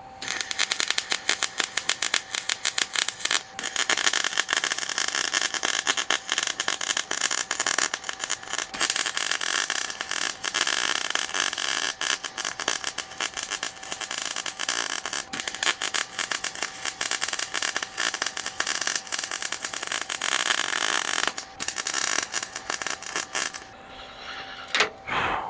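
Electric arc welder crackling steadily while laying beads to build up a worn steel vise screw. The arc breaks briefly a few seconds in and again near the end, then stops shortly before the end.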